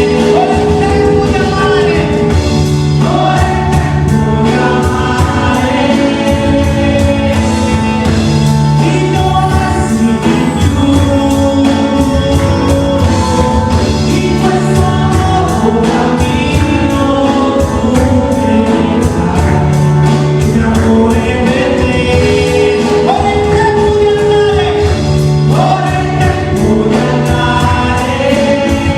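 Christian worship music: a group of voices singing over a full band, loud and steady.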